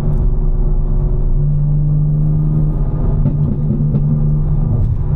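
Tuned BMW M4's S58 twin-turbo straight-six engine running at low revs with a steady drone while the car cruises in traffic, heard from inside the cabin.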